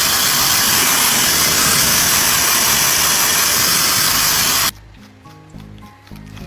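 Loud steady hiss of rushing air or spray during dog grooming, lasting about five seconds and cutting off suddenly.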